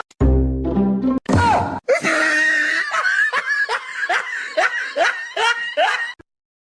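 High-pitched laughter in quick repeated bursts, about three a second, after a brief low tone at the start.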